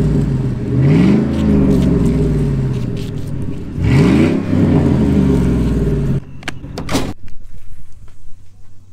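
A motor vehicle's engine running and revving up and back down twice, then cutting off abruptly about six seconds in. A couple of sharp knocks follow.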